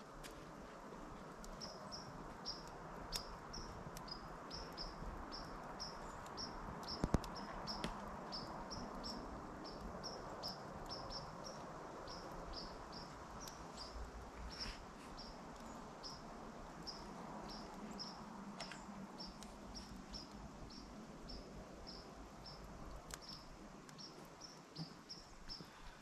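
Outdoor ambience: a high, thin chirp repeated about twice a second, over a faint steady hiss.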